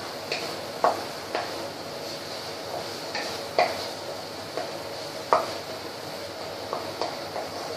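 Wooden spatula knocking and scraping against a non-stick kadai as an onion-tomato masala is stirred, in irregular strokes, over a steady sizzle of the paste frying in oil.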